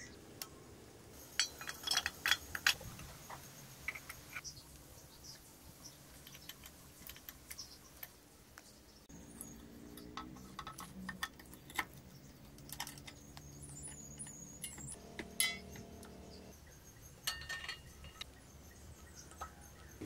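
Light metallic clicks and clinks of small steel parts being handled and fitted on a motorcycle's rear brake linkage (brake rod and return spring), in scattered groups. A faint steady low hum runs through the middle part.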